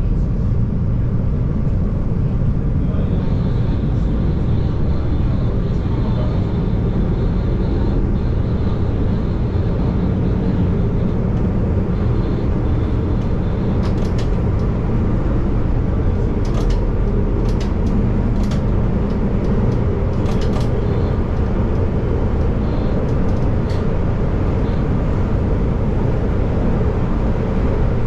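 CTA Yellow Line rapid-transit train running along the line, a steady rumble of wheels on rail heard from inside the car. A faint high whine comes in over the first several seconds, and a scatter of sharp clicks falls around the middle.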